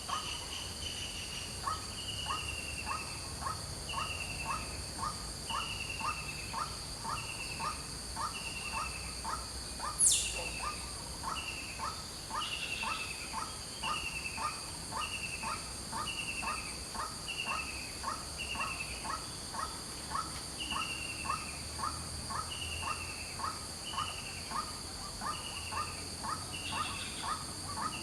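White-breasted waterhen calling: a long, unbroken run of repeated harsh notes, about three a second, with a higher falling note about once a second, over a steady high buzz of insects. About ten seconds in, a brief sharp falling sweep is the loudest sound.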